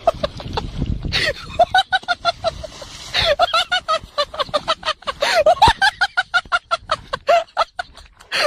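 Honking bird calls, a rapid run of short repeated honks coming several a second.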